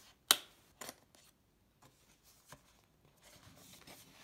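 Stiff white cardboard packaging of an Apple Watch box being handled and lifted out of its tray: one sharp snap about a third of a second in, a few lighter clicks, then a soft rustle of card sliding near the end.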